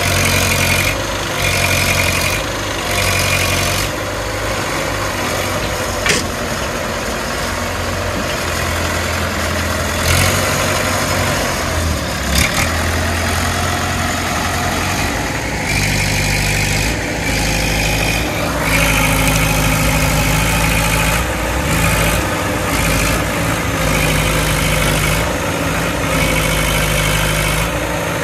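Diesel engine of an ACE Hydra pick-and-carry crane running steadily close by, its note shifting a couple of times, with a higher tone coming and going and two sharp clicks.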